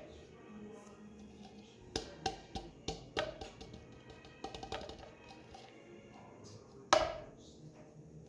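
A container of thick glue tapped and knocked against a bowl to get the last of the glue out: a quick run of sharp taps, a few lighter ones, then one loud knock near the end.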